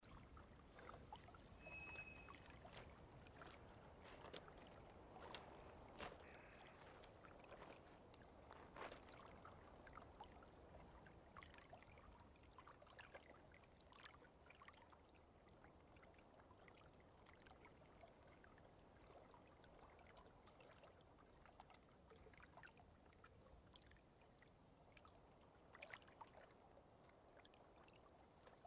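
Faint, gentle lake water lapping at a pebbly shore, with small scattered splashes and ticks. There is a single short high note about two seconds in.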